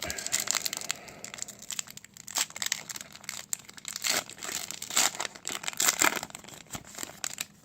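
A trading card booster pack wrapper being torn open and crinkled by hand, an irregular run of crackles that is loudest about five to six seconds in.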